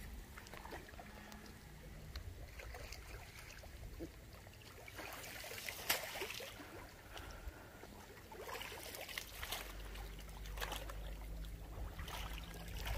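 Water sloshing and trickling, with scattered small knocks and one sharper knock about six seconds in, over a low rumble that sets in past the middle.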